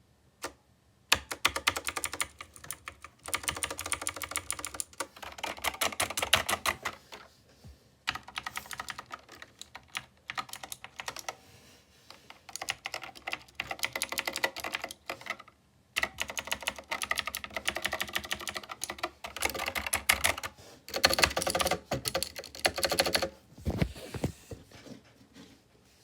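Rapid typing on a keyboard, in bursts of a few seconds separated by short pauses.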